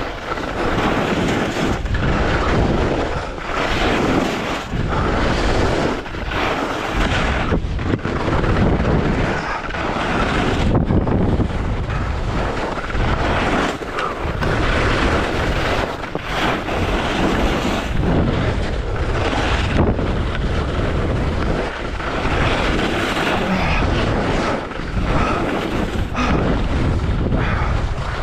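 Strong wind buffeting the action camera's microphone, a loud rumbling rush that swells and dips in gusts every second or two.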